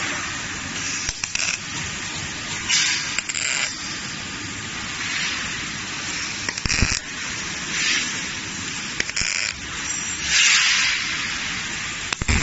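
Robotic arc welding: the welding arc crackles and hisses in about seven short bursts of up to a second each, separate welds laid down between moves of the robot arm, over a steady background hiss.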